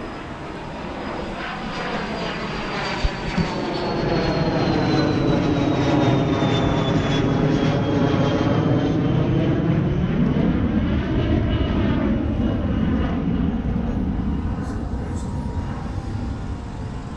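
An aircraft flying over: its engine sound swells to a peak midway and slowly fades, with a high whine that slides gradually down in pitch. Two short clicks about three seconds in.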